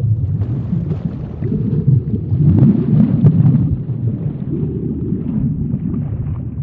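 Low rumbling underwater ambience with bubbling, a cartoon sea-background sound effect, swelling and easing a few times.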